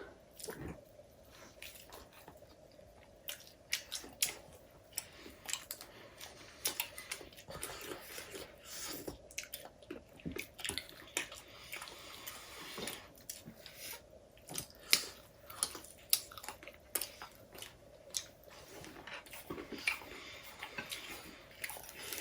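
People eating chowmein noodles and fried chicken: chewing and biting with many irregular small clicks and crunches.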